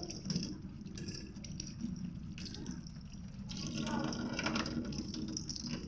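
Running water splashing, as while filling or rinsing.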